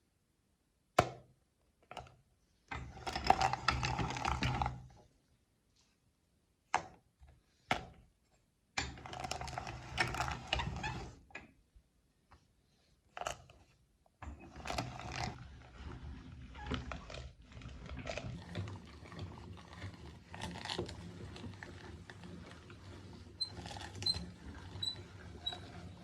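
Meat grinder running in short bursts, with sharp clicks between them, then running steadily for the second half.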